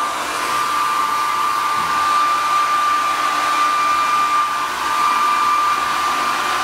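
A small electric blower running steadily: rushing air with a constant high-pitched whine.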